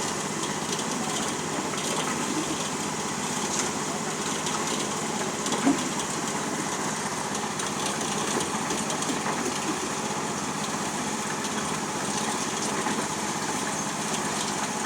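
Portable concrete mixer's small engine running steadily. A single sharp knock sounds about six seconds in.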